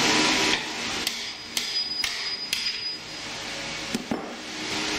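Hammer blows on a stainless steel grill part held in a bench vise, several sharp strikes with a ringing metallic note, knocking at a piece that is stuck and won't come off. A steady rushing noise stops about half a second in and comes back for the last second or so.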